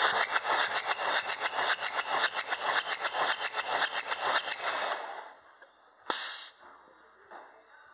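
A 2.2 L 16-valve turbodiesel engine cranked on its starter for a compression test, pulsing evenly about six or seven times a second for some five seconds. A short hiss follows about a second after it stops.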